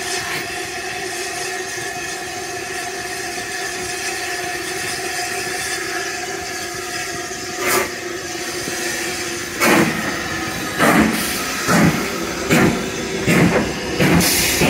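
BR Standard Class 5 steam locomotive standing with a steady hiss of steam, then pulling away. One exhaust chuff comes about halfway through, and from a couple of seconds later regular chuffs follow, getting steadily faster as the engine starts the train.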